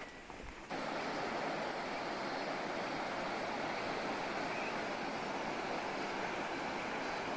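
Steady rush of flowing water, a river or rapids, setting in abruptly about a second in and holding even.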